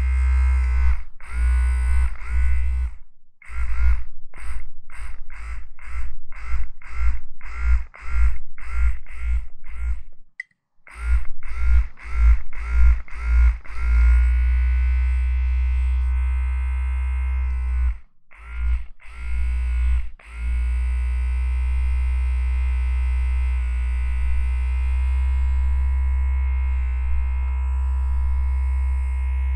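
Low buzzing drone with many overtones, chopped into pulses about twice a second for several seconds, then running steadily with a few brief breaks.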